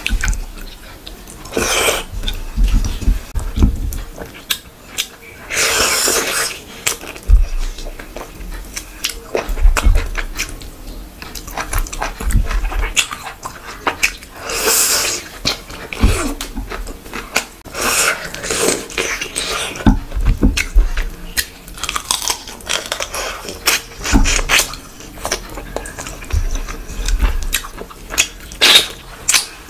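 Close-miked eating sounds of a person eating rice and curry by hand: wet chewing and lip smacking, with fingers squishing curry-soaked rice on a plate, in irregular clicks and bursts.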